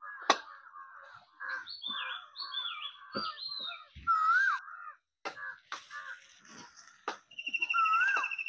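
Several birds calling over one another, with whistled notes, harsher calls and a fast trill near the end. A steel slotted spoon now and then scrapes and knocks against the iron kadhai as the chole is mixed.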